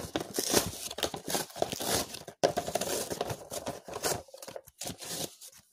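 Toy packaging being torn open and crinkled by hand: a run of irregular crackles and rips that stops shortly before the end.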